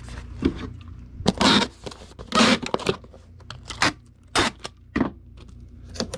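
Packing noises as a DVD goes into a small cardboard shipping box with bubble wrap: several short tearing and scraping sounds, with handling rustle between them.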